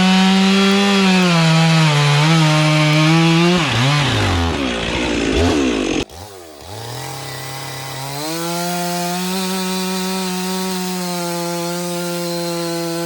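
Stihl MS 400 C-M two-stroke chainsaw cutting a log at full throttle, its pitch sagging under load. About four seconds in the revs fall away and the sound drops off sharply near six seconds. The saw then revs back up and runs at a steady high pitch.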